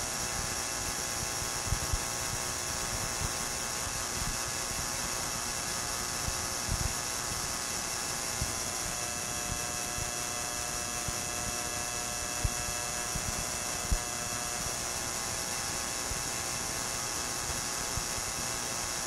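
Experimental noise music from a cassette: a steady, dense hiss, strongest high up, over faint held tones, broken by scattered low thumps and pops at uneven intervals.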